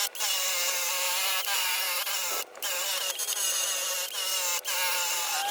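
Handheld electric power tool running under load on the rusted sheet metal of a VW Vanagon's hatch area, cleaning it up. The motor's whine wavers in pitch with the pressure and cuts out briefly about halfway through before starting again.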